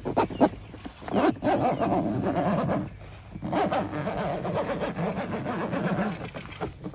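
Zipper on a Wildland 180 awning's fabric storage cover being pulled open, a rapid rasping run of teeth in two long drags with a short break about three seconds in.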